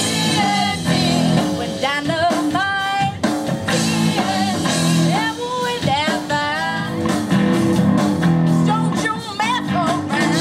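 Live rock band playing: a young woman sings lead into a handheld microphone over guitar and a drum kit.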